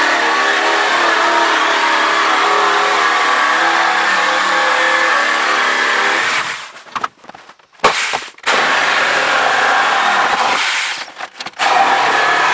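Electric jigsaw cutting through a wooden board, running steadily with the reciprocating blade chattering in the wood. The sound cuts out twice, about six and a half seconds in and again near eleven seconds, each time resuming at the same level.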